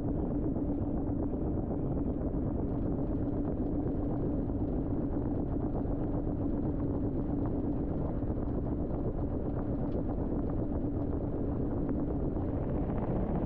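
LG TROMM WashTower front-loading washing machine in its spin cycle, heard from inside the drum: a steady machine hum with a low drone that weakens about ten seconds in.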